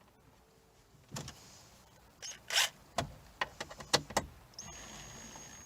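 Clicks and knocks of plastic glove box parts and the screw being handled, then about a second of a cordless driver's motor whirring steadily near the end as it drives the screw into the old plastic.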